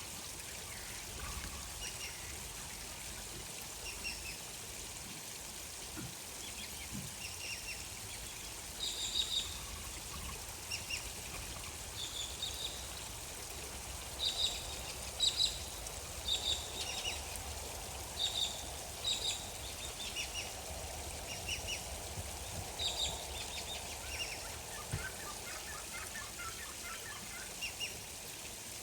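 Several short, high bird calls, repeated in clusters, over a steady wash of gently flowing water. Near the end comes a quicker run of lower notes.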